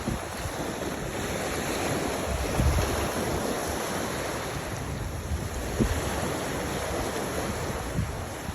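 Sea water washing with wind buffeting the microphone in low gusts, and a couple of short knocks near the end.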